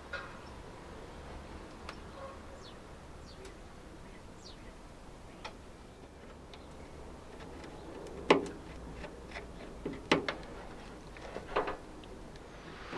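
Work sounds from handling parts or tools: scattered light clicks and ticks, then a few sharp knocks, the loudest about eight seconds in and others near ten and eleven and a half seconds, over a faint low hum.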